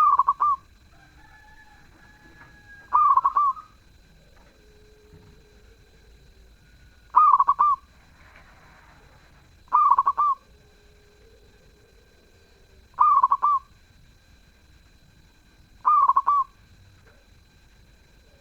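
Zebra dove (perkutut) singing, a short stuttering coo repeated six times at roughly three-second intervals.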